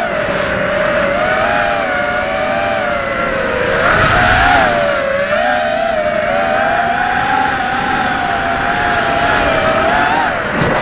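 Impulse RC Alien 6 FPV racing quadcopter's brushless motors and propellers whining in flight, the pitch rising and falling as the throttle changes, with air rushing past the onboard microphone.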